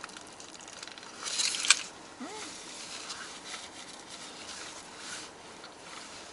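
Close-up eating sounds: chewing and a foil wrapper crinkling in the hands. There is a burst of crinkling with a sharp click about a second and a half in, then a brief hummed "mm".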